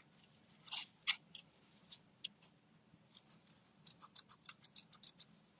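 Small scissors snipping stamped paper in faint short snips: a few scattered snips, then a quicker run of small snips near the end.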